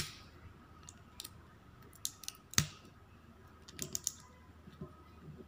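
Fingernails picking at the plastic wrapping and seal of a toy capsule ball: a series of sharp clicks and light crackles, the loudest about two and a half seconds in and a quick cluster of them near four seconds.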